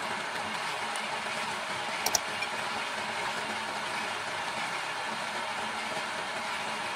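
Electric wood lathe motor running steadily, with two sharp clicks about two seconds in.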